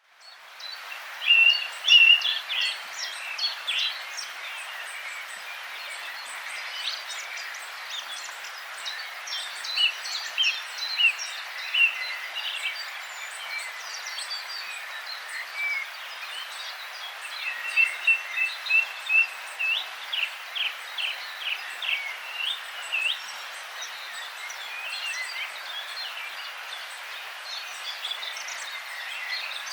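Several songbirds singing, a busy mix of short chirps, whistles and trills, over the steady rush of a river. The birds are loudest near the start, and again about two-thirds of the way in with a run of quick repeated notes.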